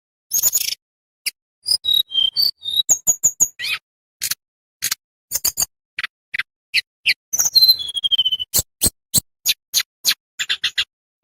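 A tledekan bambu songbird singing a fast, irregular run of sharp clicking chips and short high whistles, with a short falling trill about three quarters of the way through.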